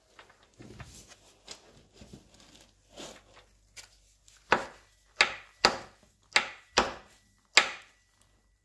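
Milling-machine Y-axis shaft worked back and forth by hand in its housing, metal knocking on metal. Soft scraping comes first, then about seven sharp knocks in the second half, with a faint metallic ring. The shaft is still held by a hidden retainer.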